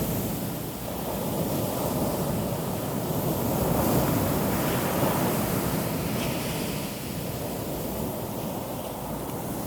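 Sea surf washing onto a beach: a continuous rushing hiss of waves that swells and ebbs every few seconds.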